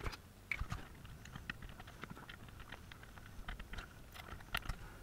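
Faint, scattered light clicks and taps of small tools and parts being handled on a TV power-supply circuit board.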